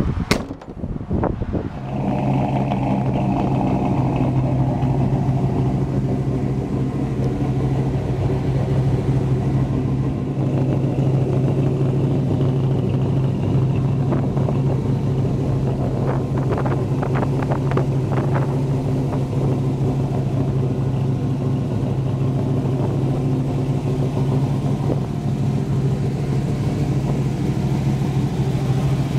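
Chevrolet 283 V8 with an aftermarket cam and headers idling steadily, after a few knocks at the very start.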